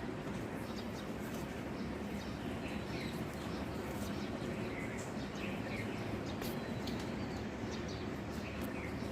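Faint, short bird chirps every second or two over a steady background hum.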